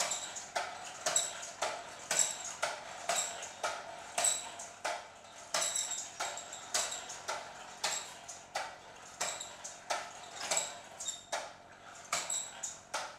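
Compressed-air piston engine of a radio-controlled toy car, with slider valves, running slowly. It gives short sharp exhaust puffs about two a second as the air pressure from its bottle runs low.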